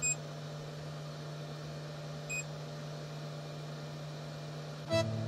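Two short, high touchscreen beeps about two seconds apart as the Creality CR-6 SE 3D printer's touchscreen is tapped, over the steady low hum of the powered-on printer.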